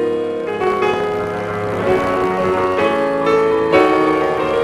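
Instrumental music led by piano, held chords changing about once a second.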